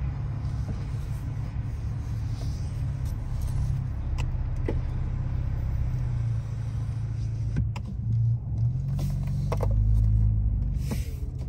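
Car engine running, heard from inside the cabin as a steady low rumble, with a few light clicks and a louder low hum for a couple of seconds near the end.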